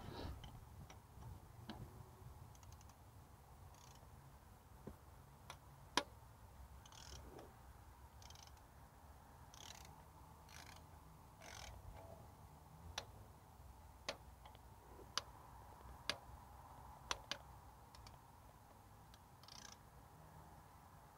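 Faint hand-tool sounds from a ratchet turning a spark plug socket on its extension in a 1.4 petrol engine's plug wells: short bursts of ratchet clicking and scattered sharp metal clinks, the loudest about six seconds in and a run of them in the second half.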